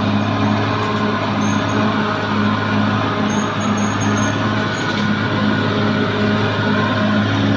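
Caterpillar D6R XL bulldozer's diesel engine running steadily, with a hum that pulses on and off about twice a second.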